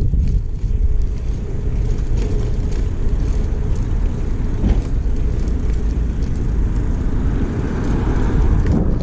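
Wind rushing over the camera microphone on a moving bicycle, a loud steady low rumble, with light clicks and rattles from the bike scattered through it.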